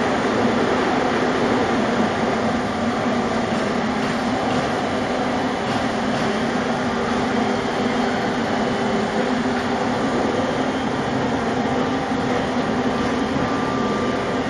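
Veneer peeling machinery, a spindle veneer lathe with its reeling machine, running steadily as a continuous mechanical rumble with a faint steady hum.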